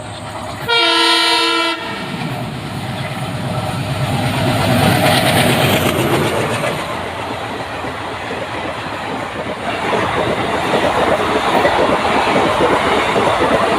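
WDM3D diesel locomotive sounds its horn in a single blast of about a second, then the train passes close by with a rising rumble and the clickety-clack of wheels over rail joints.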